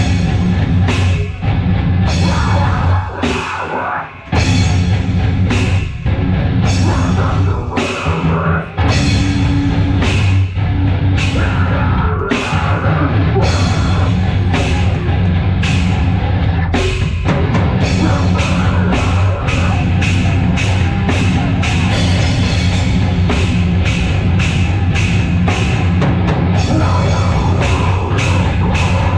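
Live heavy metal band playing loud, with a drum kit pounding out a fast beat and cymbal crashes. The drumming gets faster about 17 seconds in.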